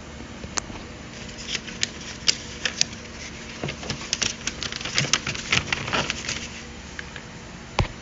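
A folded paper instruction sheet being handled and turned over, crinkling and rustling in a string of sharp crackles that stop about six seconds in.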